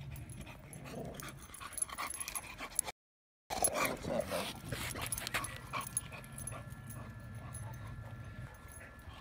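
Dogs vocalizing close by, with a brief gap of dead silence about three seconds in and the busiest stretch of dog sounds just after it.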